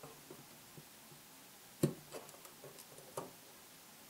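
A few light clicks and taps of small plastic model-kit parts being handled, the sharpest a little under two seconds in and another just after three seconds.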